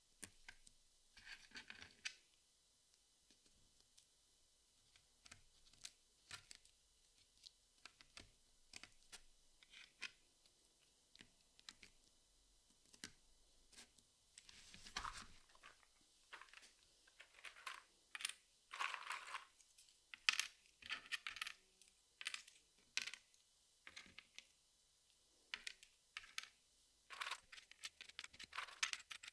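Jigsaw puzzle pieces being handled: irregular light clicks and taps of the pieces, with a few short rustles as pieces are sifted, busier in the second half.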